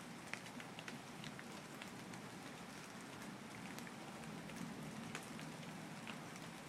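Light rain pattering: a faint steady hiss with irregular scattered drop ticks.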